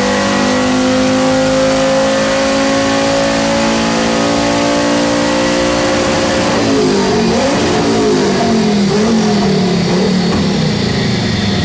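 Turbocharged 2.3-litre VW VR5 five-cylinder engine on a chassis dyno, pulling at full throttle on wastegate boost pressure alone, its revs climbing steadily for about six and a half seconds. Then the throttle closes and the revs fall away, wavering unevenly.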